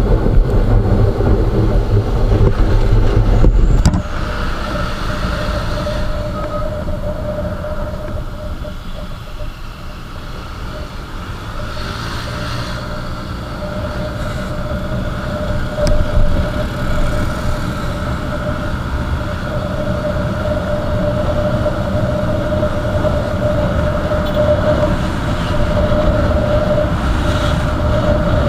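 Motorcycle riding along the road: the engine runs with a steady hum under road and wind noise. Heavy wind buffeting on the microphone for the first four seconds cuts off suddenly.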